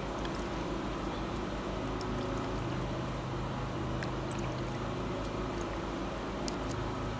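A plastic spoon pressing wet grated ginger against a metal mesh sieve, with faint scattered clicks and scrapes as ginger juice drips into the bowl below, over a steady low hum.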